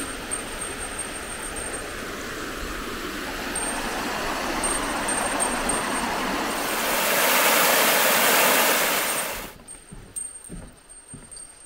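Water flowing in a forest stream, then louder rushing white water over rocks from about six and a half seconds that cuts off suddenly near the end. A small bear bell jingles faintly now and then.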